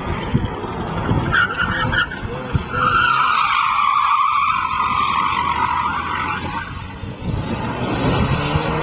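Mitsubishi Lancer Evolution's tyres squealing as it corners hard on tarmac: a short squeal about a second in, then a long one that lasts a few seconds. The car's engine runs under it, most plainly at the start and near the end.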